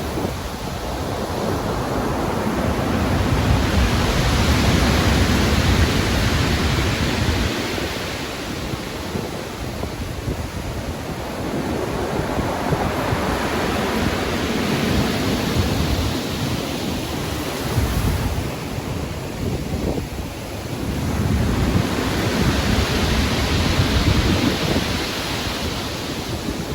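Rough sea with waves surging and breaking in three long swells, each building to a rush and easing off, over a steady wind.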